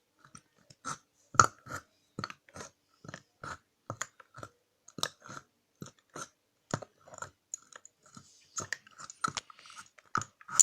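Slime squelching in a glass jar as a wooden skewer pushes it down, giving an uneven string of short wet pops, about two or three a second, like fart noises.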